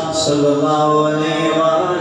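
A man's voice chanting a devotional Urdu verse in long, drawn-out melodic notes, with a hissed consonant near the start.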